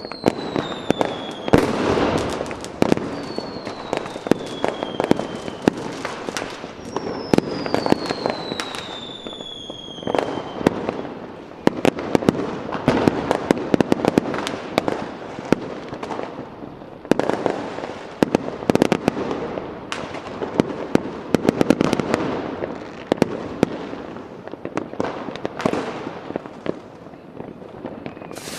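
Fireworks going off: a dense, continuous run of sharp bangs and crackles. In the first ten seconds three high whistles glide down in pitch.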